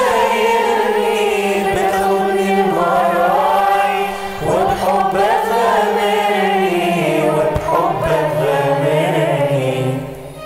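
Mixed choir of men's and women's voices singing an Arabic hymn together in long sung lines; the singing drops away about ten seconds in.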